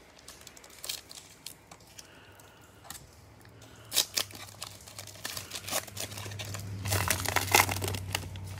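Plastic wrapper of a 2020 Prizm baseball cello pack crinkling as gloved hands work it open. A sharp tear comes about four seconds in, and the crinkling grows denser and louder near the end as the wrapper is pulled apart.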